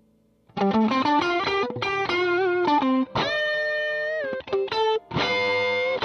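Electric guitar played through a Demonfx Breaker Drive overdrive pedal, a clone of the Marshall Blues Breaker, with the pedal switched on. A lick of quick single notes starts about half a second in, then a long note is held with a slight vibrato and bent down at its end, then another note is held near the end.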